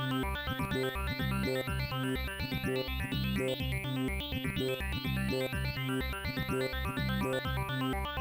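Electronic synth music of an Amiga 64k intro, played by a real Amiga 1200: a steady pulsing bass beat under fast, rapidly changing synth notes.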